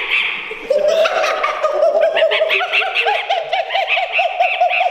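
A man's voice holding a high, sustained warbling note, its pitch wobbling up and down about four to five times a second: a practised vocal trick.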